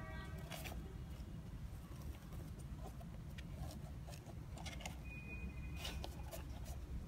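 Light handling noise of a mesh sneaker being turned and its laces pinched: a few soft clicks and rustles over a steady low hum, with a short pitched squeak right at the start.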